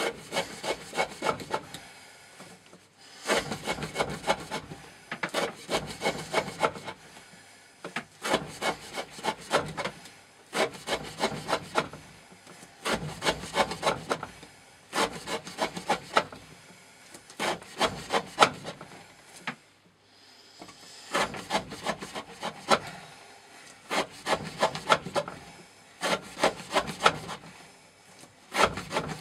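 A knife blade of N690 steel sawing back and forth through rope, making one cut after another about every two seconds. Each cut is a burst of rapid rasping strokes. The edge is wearing dull and the cuts come hard.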